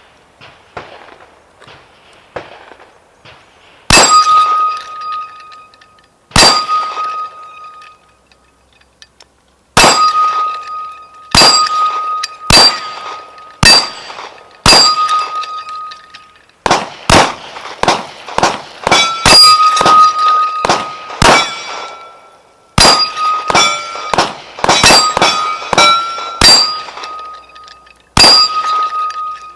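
Rifle shots hitting a steel gong target, each hit a sharp crack followed by a ringing tone. They start about four seconds in, spaced a second or more apart, then come in quick runs of several shots a second in the second half.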